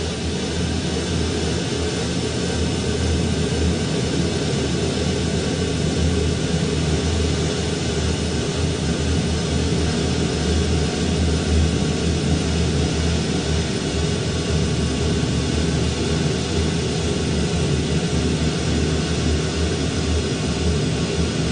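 Dark ambient drone music: a dense, steady wall of low rumble and hiss with no beat or breaks.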